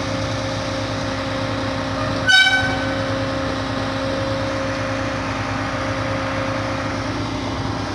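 Schwing truck-mounted concrete pump running, its engine and hydraulics giving a steady drone while the boom is raised. About two seconds in, a brief loud horn-like toot cuts through.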